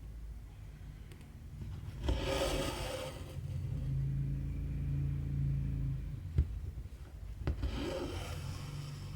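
Cotton embroidery thread pulled through cross-stitch fabric in two rasping swishes, with a couple of sharp clicks and a steady low hum underneath.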